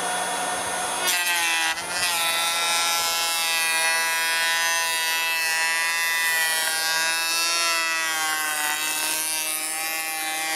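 POPOMAN TECCPO 18V cordless planer running and planing along a wooden beam at 1.0 mm cutting depth: a steady motor whine with the blades' cutting noise. Its pitch sags briefly between one and two seconds in.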